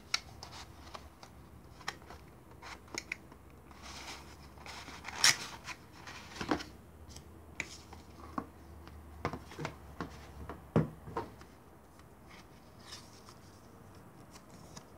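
Cardboard retail box of an SSD being handled: the printed sleeve slid off the box and the paper leaflets inside lifted out, with scattered rustles, scrapes and light taps. The sharpest knocks come about five and eleven seconds in, and the handling is quieter near the end.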